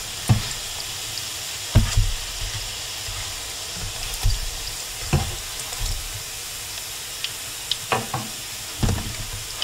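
Salmon patties sizzling steadily in hot oil in a skillet, with several short knocks of a spatula and utensil against the pan as the patties are turned and lifted out.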